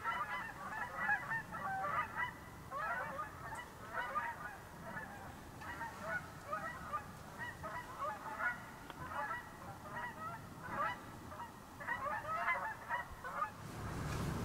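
A large flock of geese flying overhead, honking in many overlapping calls. The honking ends shortly before the end, giving way to a low rush of wind.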